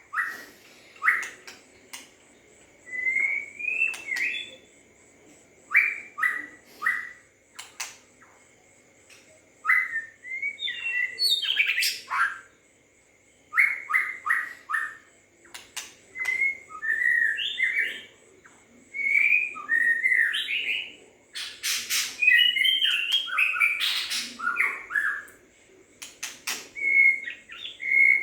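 White-rumped shama singing in short phrases of quick, clear whistled notes, repeated with brief pauses between them. A few sharp clicks fall between the phrases.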